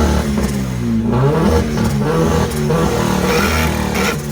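Honda Civic hatchback's engine held on a two-step launch limiter. The revs repeatedly climb and drop against the limiter, with sharp pops from the exhaust.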